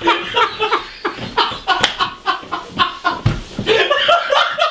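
A man laughing hard in a long, steady run of short bursts of laughter.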